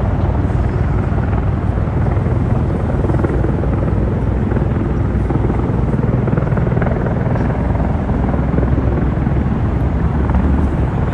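V-22 Osprey tiltrotor in helicopter mode, its rotors making a steady, deep pulsing drone as it descends to land and hovers just above the water.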